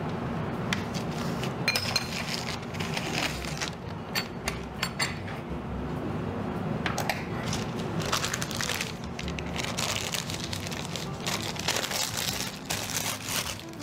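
A spatula scraping and knocking against a glass mixing bowl of cookie batter, mixed with the crinkling and clicking of a plastic piping bag being handled: an uneven run of scrapes, taps and crinkles.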